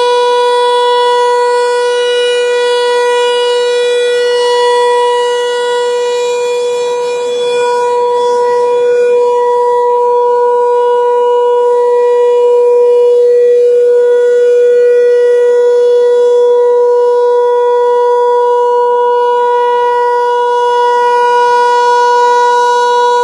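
Federal Signal 508 electromechanical outdoor warning siren sounding loudly, holding one steady pitch with slow swells and dips in loudness and tone.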